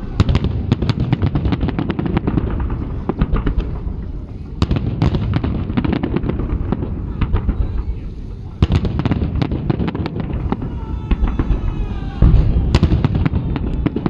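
Aerial fireworks salute: shells bursting with low booms under dense, continuous crackling from glittering stars. It swells louder about eight and a half seconds in, and again at about twelve seconds.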